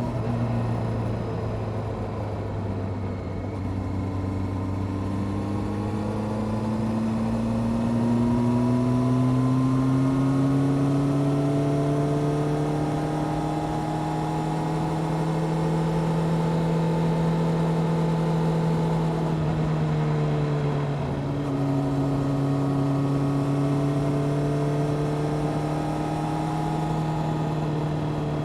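Honda CBR600F Sport's inline-four engine with a Delkevic exhaust, heard on board while riding. The engine note climbs slowly and steadily, drops briefly about twenty seconds in, then holds steady.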